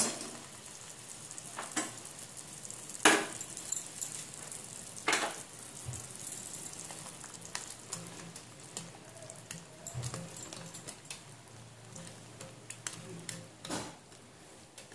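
Urad dal imarti sizzling as they fry in hot oil in a kadhai, a steady hiss. Several sharp clicks come from a wire skimmer tapping against the pan.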